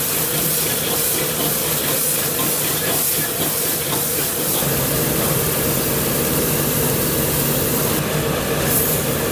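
Steady roar of a high-heat gas wok burner, with vegetables sizzling and hissing as they are tossed and stir-fried in a wok, and a ladle scraping against the pan. The hiss grows louder near the end.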